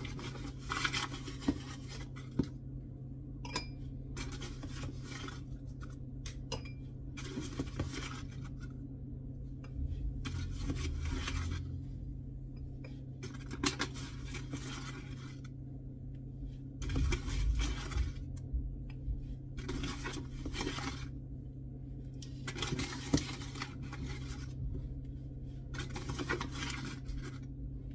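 Plastic bag of flour crinkling and rustling as a cup is dug in to scoop out flour, in repeated bursts every second or two. A steady low hum runs underneath.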